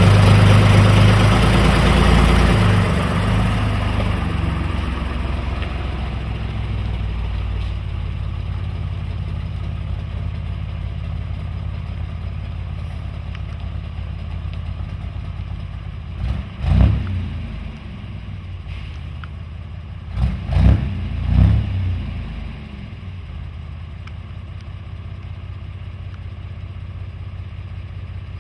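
Magirus FA 170D11 truck's air-cooled Deutz diesel engine running with its new exhaust: loud at first, then settling to an even, lower run. Partway through, the engine speed briefly rises and falls once, then twice more in quick succession a few seconds later.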